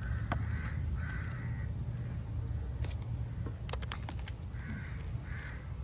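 Crows cawing, two hoarse caws early on and two more near the end, over a steady low rumble, with a few sharp clicks in between.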